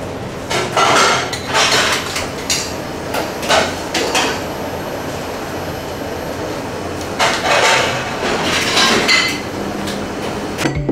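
Kitchen clatter: metal utensils and pans clanking and scraping in several bouts, over a steady background hum.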